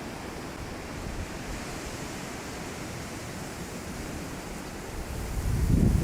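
Wind rushing through trees, with a steady hiss of blowing leaves; about five seconds in a gust hits the microphone with a rising low buffeting rumble.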